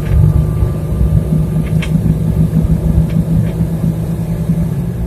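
Jeep XJ's engine running with a steady low drone, with a few faint high clicks over it.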